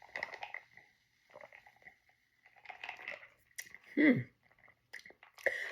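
Sipping soda from a can and swallowing: soft slurps and mouth noises, with small clicks and a short falling "mm" about four seconds in.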